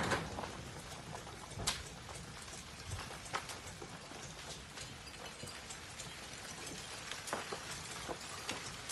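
Front of an advancing lava flow with glowing blocks breaking and tumbling: scattered, irregular sharp cracks and clinks over a faint steady hiss.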